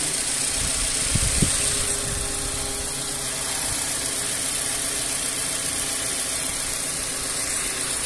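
Volkswagen Vento engine idling steadily at full operating temperature, with two short low thumps a little over a second in.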